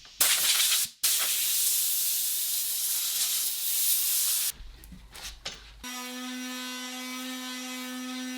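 Spray hissing in two bursts, a short one and then a longer one lasting about three and a half seconds. A few clicks follow, and then a power tool's motor starts and runs at a steady pitch.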